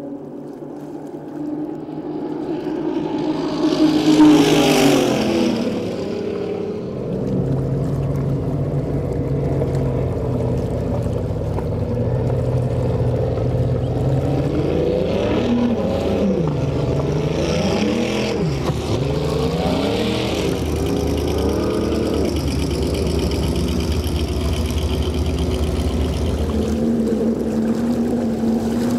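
Turbocharged speedboat engine running at speed on the water. It comes closest about four seconds in, with a falling pitch and a burst of hiss, then rises and falls in pitch several times as the throttle changes before settling to a steady run.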